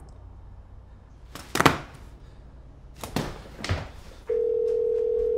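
A few knocks and bumps, the loudest about a second and a half in. From about four seconds in comes a phone's ringback tone, one steady ring of an outgoing call heard through the phone's speaker.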